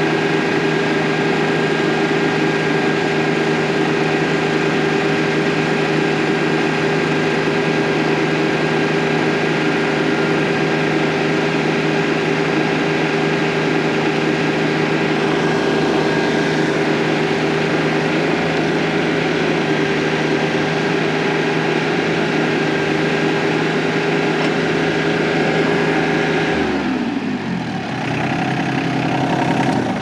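TYM T25 compact tractor's 25 hp diesel engine running steadily under the load of a loader-mounted hydraulic auger drilling into hard clay. About 27 seconds in, the engine speed falls away sharply.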